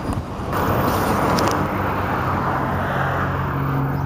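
Road vehicle close by: a rushing swell as it goes past about half a second in, then an engine humming steadily from about halfway through.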